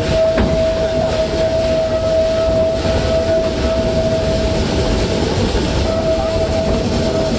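Two-truck Shay geared steam locomotive working hard at full throttle up a steep grade, hauling a loaded narrow-gauge passenger train, heard from aboard the train as a continuous rumble. A single steady high tone rings over it the whole time.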